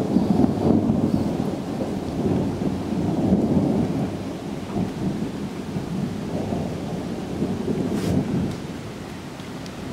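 Rolling thunder, a long low rumble that swells in the first few seconds and slowly dies away near the end.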